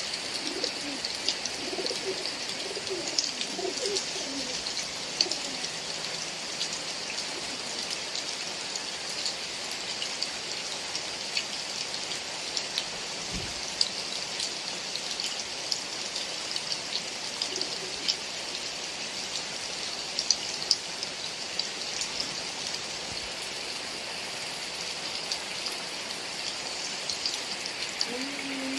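Heavy rain falling steadily, with many sharp drop ticks. A bird's low cooing calls come through faintly in the first few seconds and again briefly midway.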